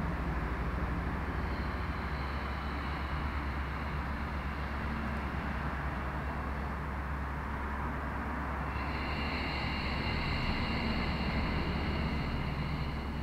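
Steady low mechanical rumble and hum. A high, steady whining tone joins it about nine seconds in.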